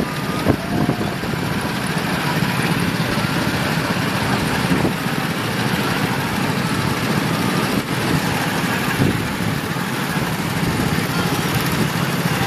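Small petrol go-kart engines running steadily as karts drive laps of the track, a continuous engine drone.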